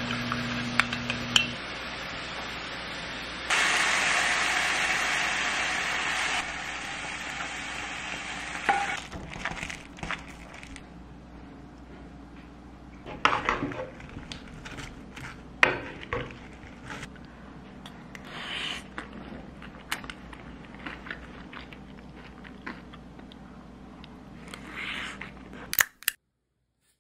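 A metal spoon clinks against a small glass bowl while stirring a sauce, with a few seconds of steady rushing noise soon after. Then come scattered taps and scrapes of a metal utensil mixing food in a wooden bowl. The sound cuts off abruptly near the end.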